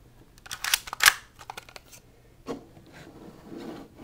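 Plastic slide of a spring-powered airsoft pistol being racked to cock it: a run of quick clicks and a sharp snap about a second in, then a single click and some handling.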